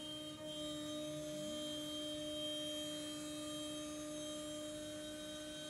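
CNC router spindle whining at a steady pitch while its end mill cuts a contour through walnut.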